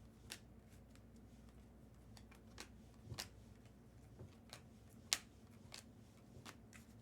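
Bowman Chrome trading cards being handled and flipped through: faint, irregular light clicks and flicks of card stock, the sharpest one a little past halfway.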